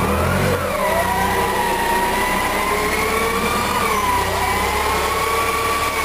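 Propane forklift running as it drives up to a pallet and slides its forks under it: a steady whine that rises and falls slightly in pitch over a low engine rumble.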